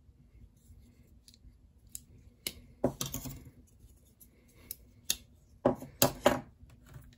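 Folding pocketknives (Benchmade Bug Out and Griptilian) being picked up and handled: scattered sharp metallic clicks and clacks, a cluster about three seconds in and the loudest three in quick succession about six seconds in.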